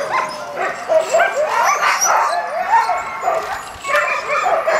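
Many sled dogs barking and yipping at once, a dense overlapping chorus of short high calls with no break. It dips briefly near the end, then picks up again.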